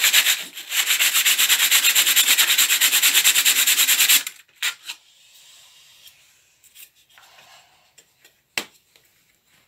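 Sandpaper rubbed by hand over a wooden board in quick back-and-forth strokes, stopping about four seconds in. A few light knocks follow.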